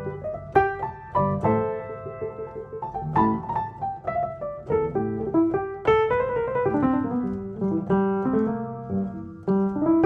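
Background piano music: a steady run of struck notes and chords.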